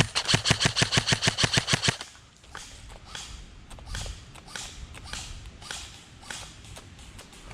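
Airsoft electric rifle firing a full-auto burst of about two seconds, a rapid even clatter of about ten shots a second. Scattered lighter clicks and crackles follow.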